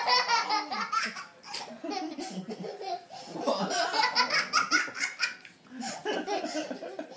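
Laughter from a small child and an adult, coming in several bouts with short lulls between them.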